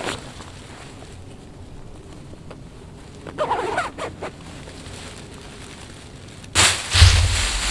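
Soft rustling of a windproof jacket being put on and settled, with a short pitched squeal about halfway through. Near the end a gust of wind hits the microphone suddenly: a loud rush with a deep rumble.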